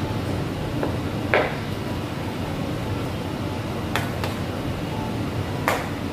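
Kitchen utensils and dishes clinking and knocking in a commercial kitchen, about five sharp hits, the loudest near the end, over a steady low rumble.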